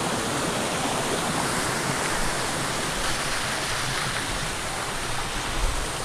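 Steady rush of a small waterfall cascading down the rock terraces into the pools.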